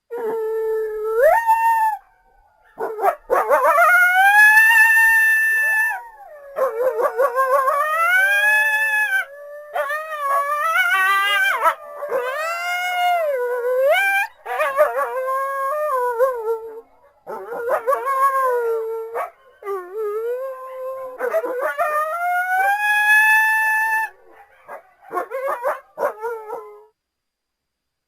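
Coyotes howling and yipping: a run of drawn-out howls that rise and fall in pitch, broken by short breaks and quick yips, stopping about a second before the end.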